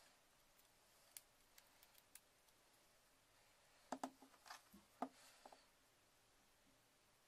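Faint clicks and light scrapes from hands handling a plastic MagSafe power adapter and a metal hobby knife, with a cluster of sharper clicks about four to five and a half seconds in.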